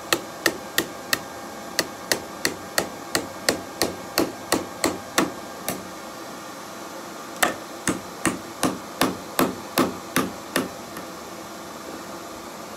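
Hand hammer striking a hot metal wing held with tongs in the hollow of a wooden block, shaping it into a curve, about three blows a second. The blows stop for about a second and a half a little after halfway, resume for about three seconds, then stop near the end.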